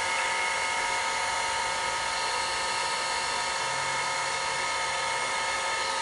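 Electric heat gun running steadily with a constant fan whine while it shrinks heat-shrink tubing over soldered wire joints.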